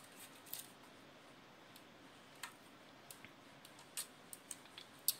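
Faint, scattered small clicks and handling noises as the last screws of a GIGABYTE BRIX mini PC's base plate are undone and the unit is turned in the hands, with a sharper click near the end.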